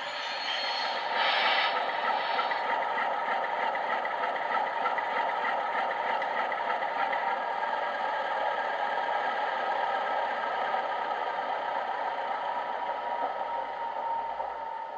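Digital sound decoder playing a recorded Class 47 Sulzer diesel engine through a model locomotive's small speaker, ticking over steadily with a brief hiss about a second in. The engine note sinks and dies away near the end.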